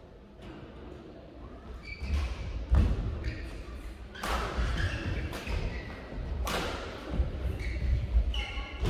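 Badminton rally: sharp racket strikes on the shuttlecock about once a second, with the players' feet thudding on the court as they move. The rally starts about two seconds in, after a quieter pause.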